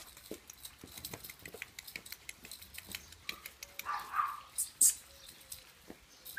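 Small Yorkshire terrier's claws pattering and clicking on paving stones as it runs about, with one short bark about four seconds in and a sharp loud snap just after it.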